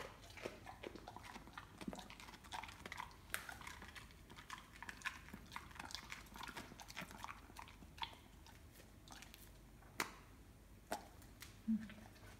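A Weimaraner chewing raw vegetables: an irregular run of short sharp clicks, with a short low sound near the end.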